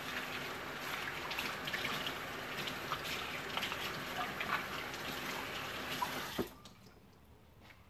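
Kitchen tap running into the sink as eggshells are rinsed under it, with water splashing; the tap is shut off about six and a half seconds in.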